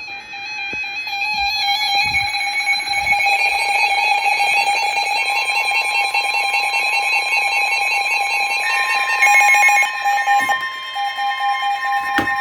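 A weather radio receiver's electronic warning alarm sounding, a shrill steady tone with rapid pulsing, activated by an incoming severe thunderstorm warning. About five seconds in, a single steady tone near 1 kHz joins it, the NOAA Weather Radio warning alarm tone.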